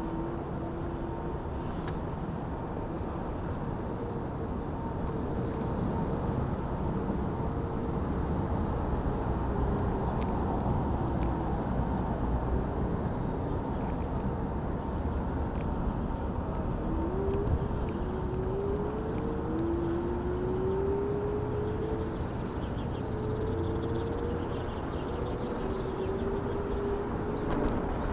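Riding an electric scooter: a steady rush of wind and road noise, with a thin motor whine that glides up in pitch several times in the second half as the scooter speeds up.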